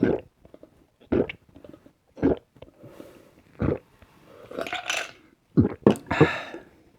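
A person gulping down coffee in loud, close swallows about once a second, then a breathy noise and three quicker gulps near the end.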